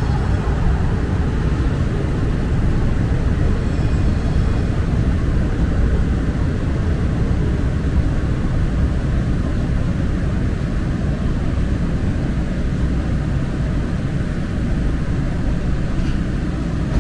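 Steady low rumble of a Muni Metro light rail train running along the track, heard from inside the car.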